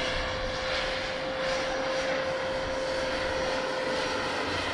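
Radio-controlled scale model helicopter flying overhead: a steady, high whine from its drivetrain and rotors over a rushing noise.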